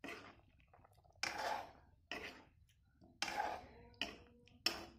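A spatula stirring a thick eel-and-potato curry in a wok-style pan. There are about five irregular strokes, each a sudden scrape through the gravy against the pan that fades over about half a second.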